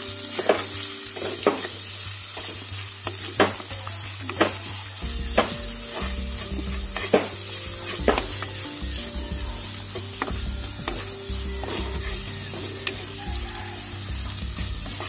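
Sliced onions, ginger, garlic and green chillies sizzling in hot oil in an earthenware clay pot while a spoon stirs them, knocking against the pot at irregular moments, roughly once a second. A low steady hum runs underneath.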